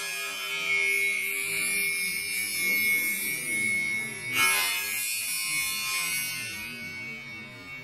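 A spinning tipped saw blade striking a steel post in a shock test: a high steady tone with a hiss over it, following a hit just before this stretch, and a second sharp hit about four and a half seconds in, after which the tone slowly fades.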